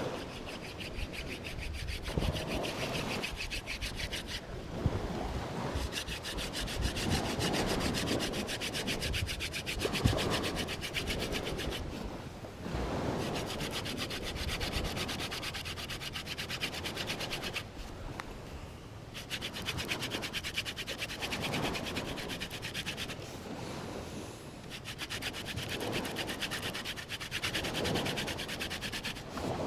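Hand drill fire-making: a wooden spindle spun rapidly back and forth between the palms against a wooden hearth board, giving a dry wood-on-wood rubbing in long runs. The runs break off briefly a few times.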